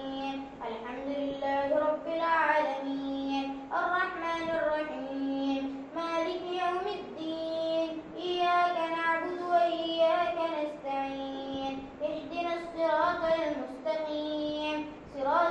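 A child's voice reciting the Quran in a melodic chant during prayer, in long held phrases with short breaths between them.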